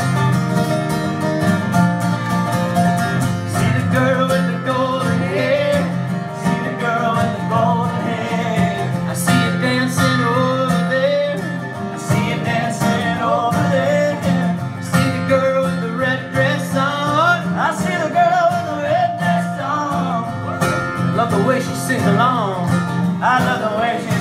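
Live country-style song: two acoustic guitars strummed together, with a man's voice singing a wavering melody over them.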